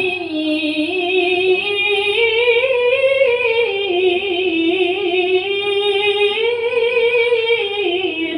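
Melodic Quran recitation (tilawah): a single voice holds one long ornamented phrase without a break. The pitch climbs about three seconds in, wavers through turns and falls back near the end.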